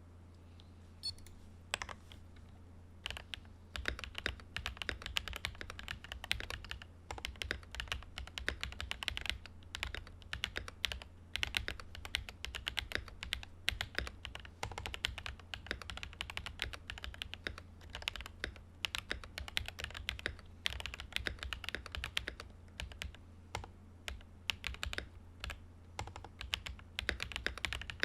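Typing on a Command 65 prototype mechanical keyboard with Sotc switches, a POM plate and silicone dampeners. A few separate keystrokes come first, then fast continuous typing from about three seconds in. A steady low hum runs underneath.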